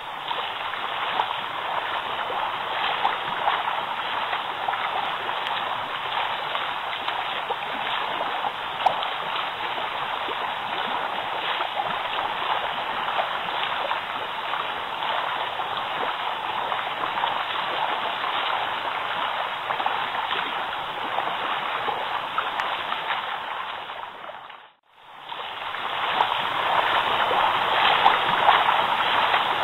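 Water churning and bubbling in a jetted walk-in bathtub with its jets running: a steady rushing. It fades out for about a second near the end and then resumes.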